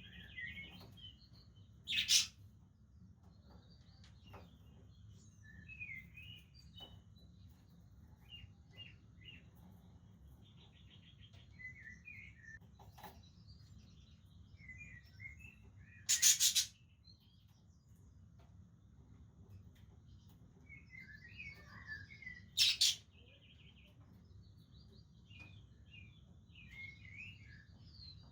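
Budgerigars chattering with steady warbling chirps, broken by three loud, harsh calls: about two seconds in, just past the middle, and about two-thirds of the way through.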